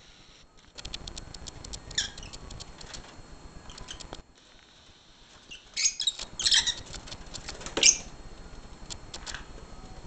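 Lovebirds chattering in rapid high chirps, then giving several loud shrill squawks, the loudest about eight seconds in.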